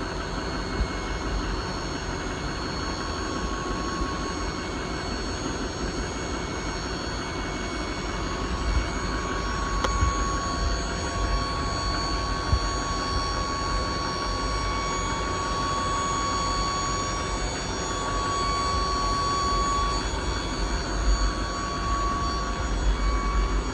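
Dump bed hydraulic pump running with a steady whine over a low rumble, the whine growing stronger about ten seconds in, as the bed is raised or lowered.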